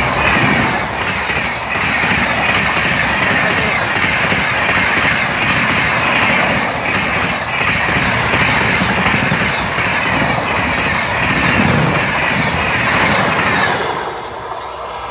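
Express train's passenger coaches passing at speed close by: a loud rushing din with the wheels clattering rhythmically over the rails. It falls away about fourteen seconds in as the last coach goes past.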